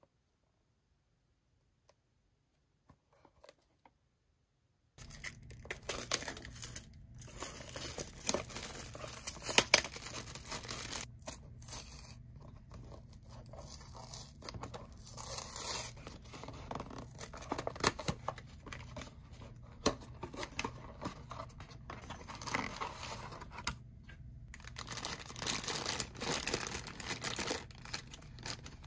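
Toy packaging being torn open and crinkled by hand, with scattered sharp clicks. It starts about five seconds in, after near silence.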